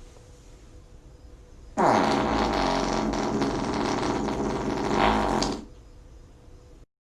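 One long, loud fart starts suddenly about two seconds in, its pitch dropping at first and then holding, and lasts about four seconds.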